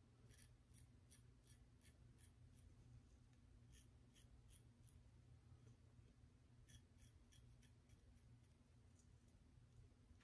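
Faint, short scraping strokes of a double-edge safety razor cutting stubble, quick touch-up passes under the nose, a few a second with a brief pause midway.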